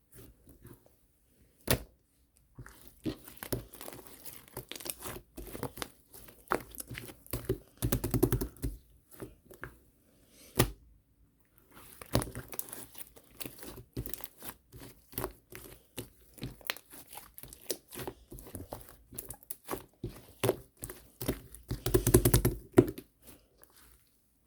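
Slime being squished, stretched and pressed by hand, with many small clicks and pops. There are denser clusters of crackling about eight seconds in and again near the end.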